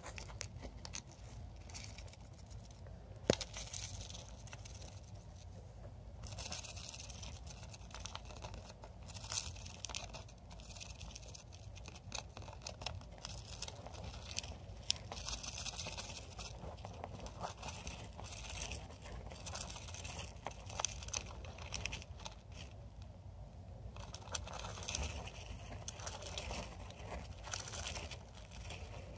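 Small pet rodent burrowing through wood-shaving and paper bedding: irregular rustling, scratching and crunching of the bedding, with one sharp click about three seconds in.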